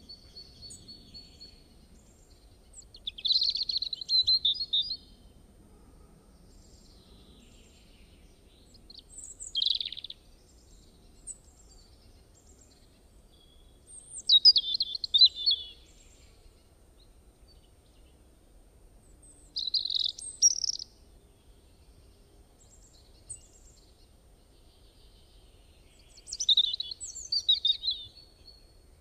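A bird chirping in five short bouts of quick, high twittering, each a second or two long and several seconds apart.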